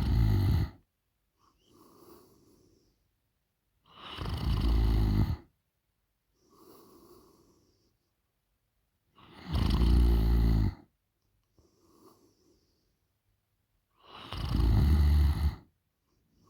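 A sleeping woman snoring: loud, low, fluttering snores about every five seconds, each lasting a second or so, with soft breaths between them.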